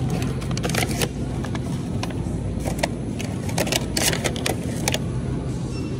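Shopping cart rolling across a store floor: a steady low rumble with scattered sharp clicks and light rattles.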